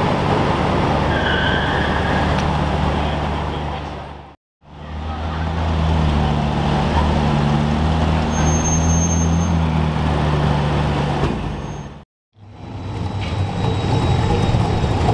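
Car engine running steadily with a low, even drone amid road traffic. The sound drops out briefly twice.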